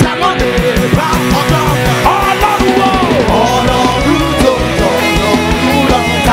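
Live gospel rock band playing loud, up-tempo music: a steady fast drumbeat on drum kit and toms under electric guitars, with a lead line bending up and down above.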